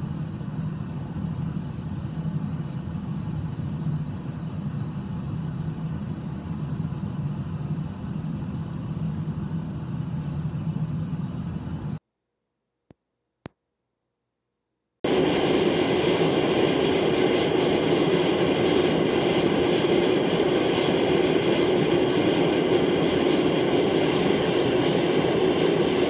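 Forced-air forge burner and blower running with a steady rushing flame noise, first with a low rumble while the fire burns poorly. After about three seconds of quiet with two faint clicks, it runs louder and higher-pitched while burning cleanly.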